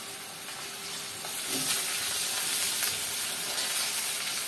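Sliced onion, crushed garlic and curry leaves sizzling in hot coconut oil in a steel kadai while being stirred with a metal spoon. The sizzle grows louder about a second and a half in.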